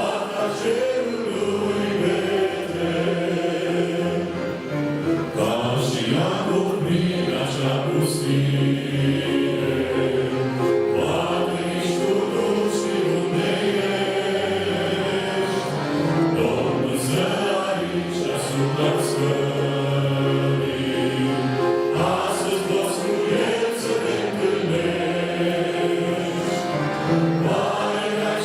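A church choir singing a Romanian hymn, voices holding long notes together over a steady accompaniment.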